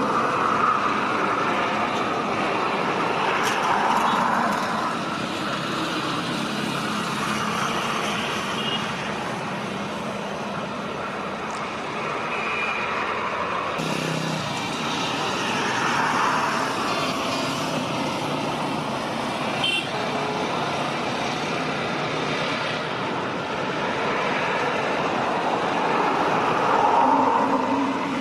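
Steady rumble of distant engines, swelling and easing every several seconds, with no single sharp event.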